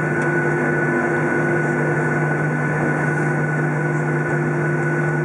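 Boeing 737's turbofan engines running at taxi power, heard inside the passenger cabin as a steady hum with a few held tones.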